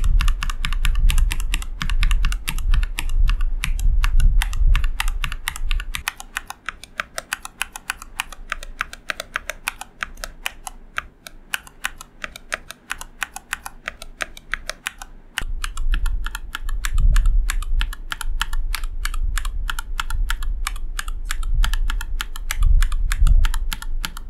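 Fast, continuous typing on a Dukharo VN96 custom mechanical keyboard fitted with linear Gateron switches. The keystrokes sound full and deep at first, turn quieter and lighter about six seconds in, and grow deep and loud again about fifteen seconds in.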